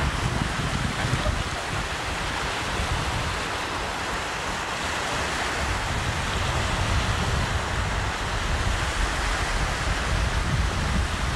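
Wind buffeting the camcorder microphone over the steady wash of small waves breaking on a sandy beach.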